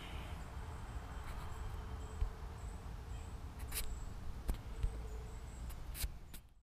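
Faint room tone: a low steady hum with a few scattered clicks, cutting off abruptly near the end.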